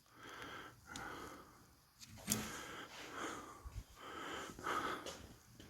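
Faint breathing and sniffing close to the microphone, in short puffs, with a light click a little over two seconds in.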